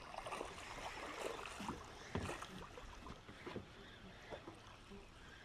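Water lapping and splashing against the hull of a small fishing boat, with irregular small knocks; the loudest knock comes a little over two seconds in.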